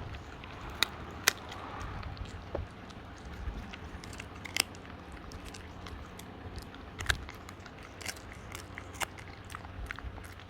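A dog chewing a dried pig ear, with irregular sharp crunches and cracks between quieter gnawing. The loudest snaps come about a second in and again at about four and a half and seven seconds.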